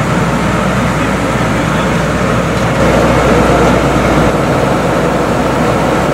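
Recovery truck's engine running steadily while its crane hoists a wrecked car onto the flatbed, with a deeper rumble swelling for about a second and a half near the middle.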